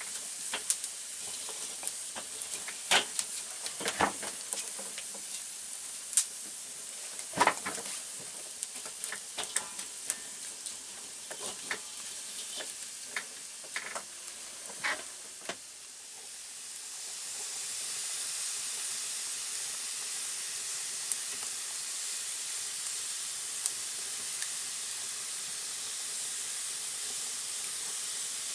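Wood fire crackling, with sharp irregular pops and snaps. A little after halfway the pops thin out, and a steady hiss of steam rises and holds.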